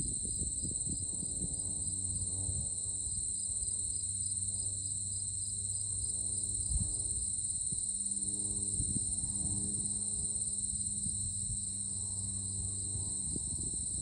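A steady high-pitched insect chorus, trilling without a break, over soft background music with long held low notes.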